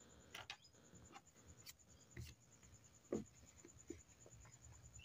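Near silence broken by a handful of faint taps and light rubs from small plastic paint pots being set down and slid on paper, the clearest about three seconds in.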